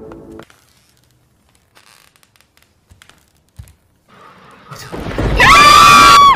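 Scary background music cuts off at the start, followed by a few faint knocks. Near the end comes a sudden, very loud, high-pitched scream, held for about a second and cut off abruptly.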